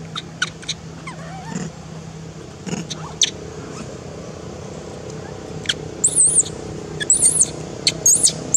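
Baby long-tailed macaque screaming in thin, very high squeals. A few short chirps come first, then three longer squeals that rise and fall in the last few seconds.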